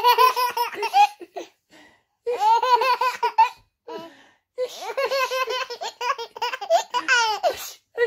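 A toddler laughing hard, high-pitched, in three bouts of quick rhythmic 'ha-ha-ha' pulses with short pauses for breath between them.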